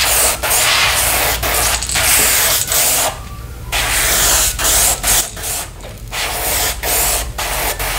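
Airbrush hissing as it sprays paint along a crankbait lure's belly and sides. It sprays in spurts with short breaks, the longest about three seconds in.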